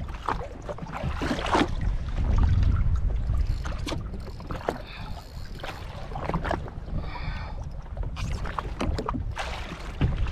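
Wind buffeting the microphone and water slapping against the hull of a jet ski, a dense low rumble with scattered short clicks and knocks.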